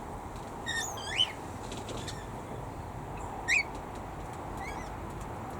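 Several short, rising bird calls, the loudest about a second in and again about three and a half seconds in, over a steady background hiss.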